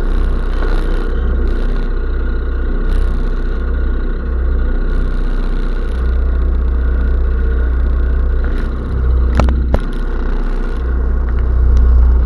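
SF150L snowmobile engine running steadily under way, with a few sharp knocks about nine and a half seconds in.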